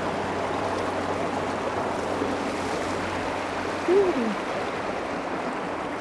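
Spring water rushing steadily over a small rocky cascade. About four seconds in there is a brief sliding voice sound that rises and then falls, like a short exclamation.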